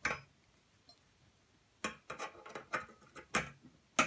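Brass tuning slide clicking and tapping against the French horn's tubing as the greased slide is fitted into its tubes: one click, then after a pause a quick, uneven run of sharp metal clicks.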